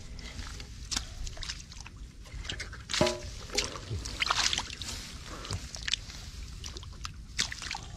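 Hands groping through shallow mud and water, making irregular squelches, slops and small splashes, with a louder splash about three seconds in and again about a second later.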